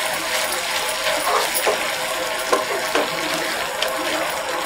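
Vermicelli boiling in water and sugar in a frying pan, bubbling steadily as it is stirred with a wooden spatula, with a few short clicks.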